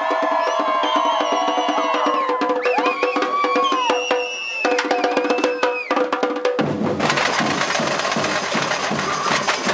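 Samba bateria percussion band drumming a fast, steady rhythm, with voices singing loudly over the drums. About two-thirds of the way through the singing drops out and the drumming turns dense, with deep bass drums.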